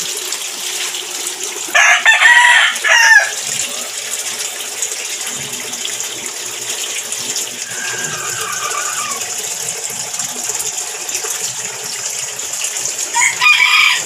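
A rooster crows loudly about two seconds in and again near the end, with a fainter call in between, over a steady rush of running water.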